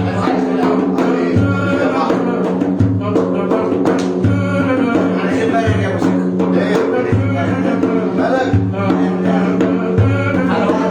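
Loud instrumental music with a steady beat: a heavy bass note comes in about every second and a half under held, layered melodic tones.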